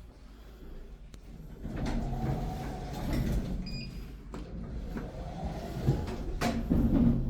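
Elevator doors of a 1997 LG Industrial Systems LGP passenger elevator sliding on their tracks, starting about two seconds in, with a sharp knock near the end.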